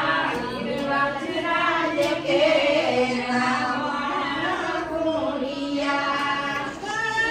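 A group of women singing a devotional song together, without instruments.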